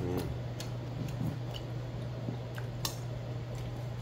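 A few light clicks of metal chopsticks against a stainless steel bowl during a meal, over a steady low hum.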